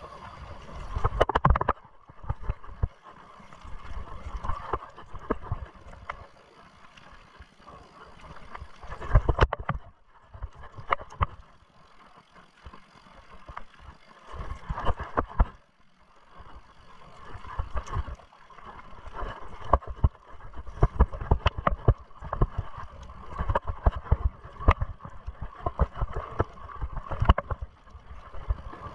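Mountain bike rolling over a rough trail, with irregular knocks, clatters and low thumps from the tyres and frame hitting bumps, over a continuous rumble of rolling noise. It goes quieter for a few seconds a little before the middle.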